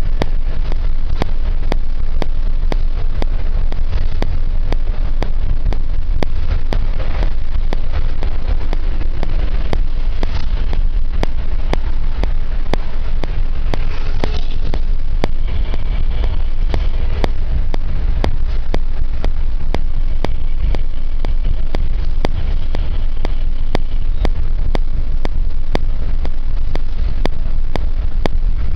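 Steady low rumble of engine and road noise from a vehicle moving in night traffic, with rapid regular clicking, about three a second, throughout.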